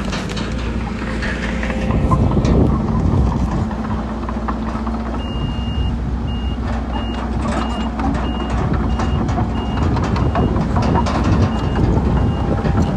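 Diesel engine of heavy earthmoving machinery running, with frequent sharp clanks and knocks. About five seconds in, a reversing alarm starts: one longer beep, then evenly spaced high beeps about one and a half a second, signalling a dozer or dump truck backing up.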